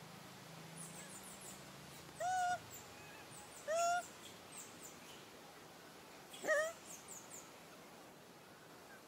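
Macaque giving three short, clear coo calls, each an arched tone, the second following quickly after the first and the third a few seconds later. Faint high chirps sound in the background.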